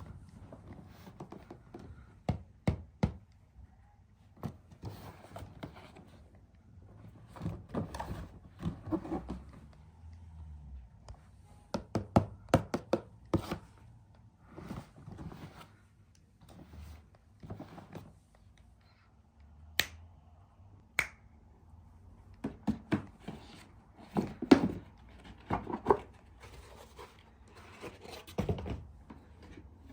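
Close-up handling sounds: hands tapping, scratching and knocking on objects in irregular clusters, with scattered sharp clicks and thunks, two of the sharpest clicks coming about two-thirds of the way through.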